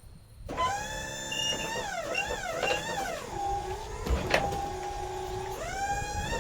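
Electric hydraulic pump motor whining as it strains under a heavy load, its pitch repeatedly dipping and rising, then sagging lower for a couple of seconds before climbing back. There is a sharp click about four seconds in.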